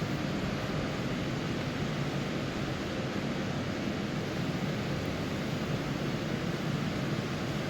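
Steady rushing air noise from running cold-room refrigeration and air-handling fans, with a faint low hum underneath.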